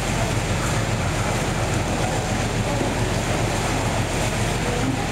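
Steady rumbling background noise of a fish market floor, with no distinct events standing out.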